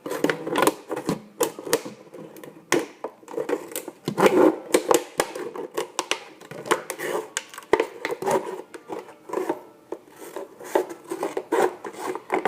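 Scissors cutting through a hard plastic soda bottle: a run of irregular crunching snips and crackles of the plastic, really loud.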